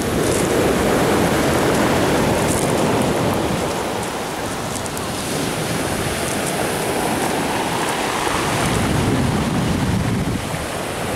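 Sea waves breaking and washing up a pebble beach, with wind rumbling on the microphone. The surf swells and eases slowly.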